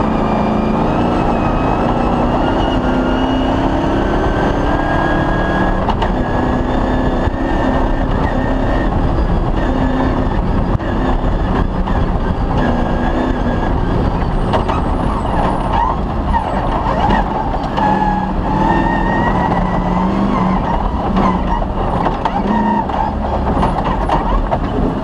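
Off-road rally vehicle's engine running hard through a special stage, its pitch rising and falling as the throttle and gears change, with scattered knocks and rattles over rough ground in the second half.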